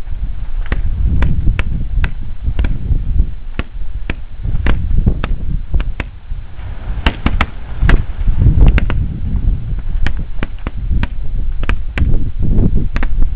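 Wind buffeting the microphone with a low rumble, over which come irregular sharp cracks and pops, several a second, from the erupting volcano's lava cascade.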